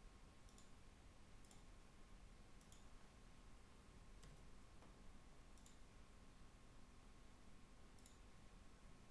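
Faint computer mouse clicks, about six spread irregularly over several seconds, against quiet room hiss.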